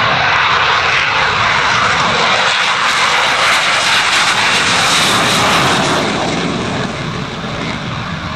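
An F/A-18 Hornet's twin jet engines taking off and passing low and fast, a loud rushing jet noise that eases about seven seconds in as the jet moves away.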